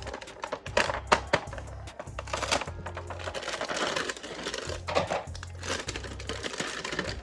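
Background music with a repeating bass line, with sharp clicks and bursts of rustling hiss over it.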